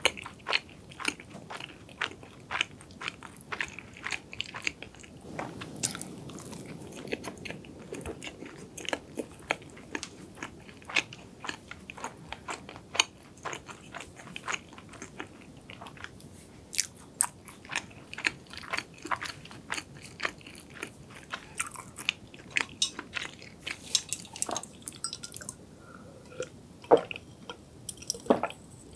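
Close-miked chewing of flaky cronut (croissant-doughnut) pastry, with a steady run of wet mouth clicks and light crunching. Near the end she sips from a glass of drink.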